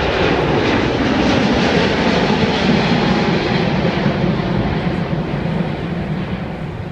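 Twin Rolls-Royce Trent XWB turbofans of an Airbus A350 at climb thrust as the airliner pulls up steeply just after takeoff: a loud, steady jet roar that starts to fade near the end as the aircraft draws away.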